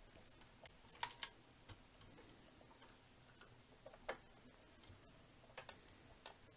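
A few faint, sharp, irregular clicks of a small screwdriver working a tiny screw into a scale model tractor's parts, the clearest about a second in and near four seconds.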